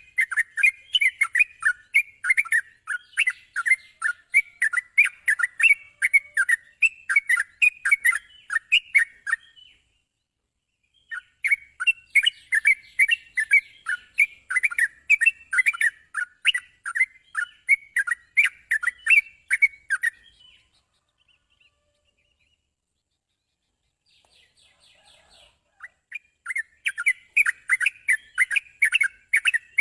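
Yellow-vented bulbul (trucukan) song: fast runs of repeated bright chirping notes, in three bouts separated by short pauses of a few seconds.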